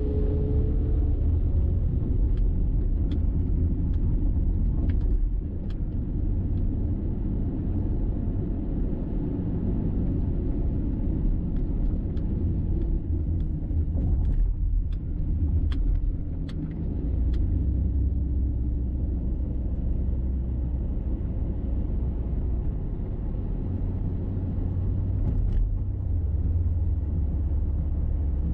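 Car driving at steady speed: a continuous low rumble of engine and tyre road noise, with a few faint clicks here and there.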